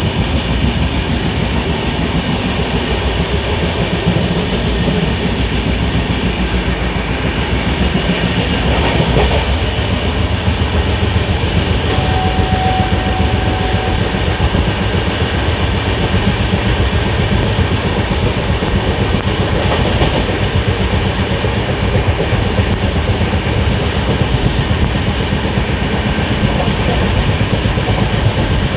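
Express passenger train coach running at speed, heard from the vestibule by the door: a steady loud rumble and rattle of the wheels on the track.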